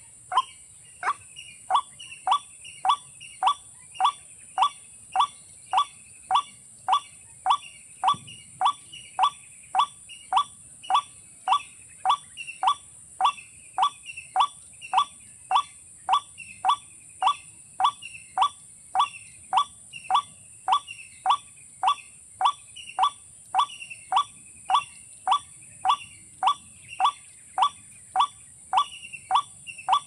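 A short, sharp bird call repeated over and over at a very even pace, about twice a second, with a steady high hiss underneath.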